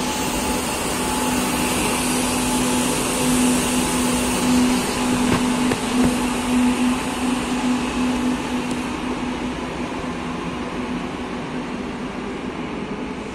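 Madrid Metro series 2000A train pulling out of the station and running off into the tunnel: wheels on rails and a steady hum from the cars, loudest as the last car passes about halfway through, then fading away.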